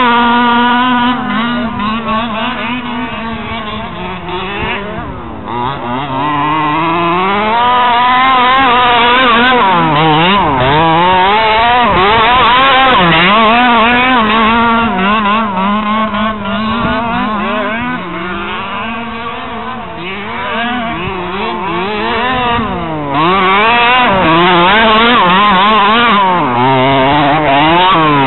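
Small two-stroke engine of a gas-powered 1/5-scale Baja RC buggy, revving up and down over and over as it is driven. It grows fainter twice as the buggy runs off and comes back.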